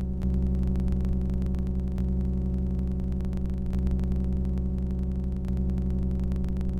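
A low, steady electronic drone from an experimental music score: several fixed pitches held together, with a fast, fine flicker running through it.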